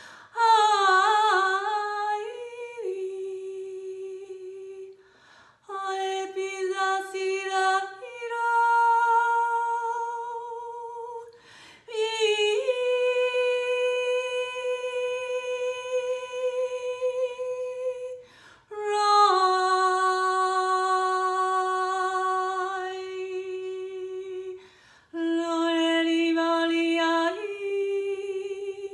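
A woman's voice intoning channelled 'light language': long, held wordless sung tones, about six phrases of a few seconds each with short breaths between, the pitch stepping or sliding between phrases and wavering at the start.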